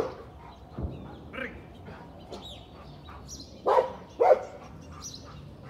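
A dog barking: one short bark at the very start, then two louder barks in quick succession about two-thirds of the way through.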